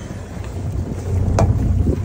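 Wind buffeting the microphone as a low, uneven rumble, with a single sharp click about one and a half seconds in.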